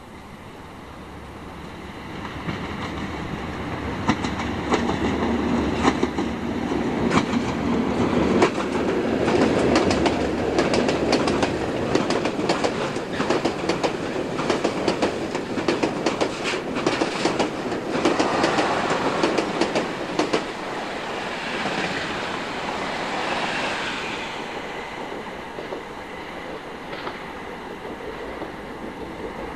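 Freight train of hopper wagons rolling past, its wheels clicking rapidly over the rail joints. It builds over the first few seconds and fades slowly in the last part, with some wheel squeal about two-thirds of the way through.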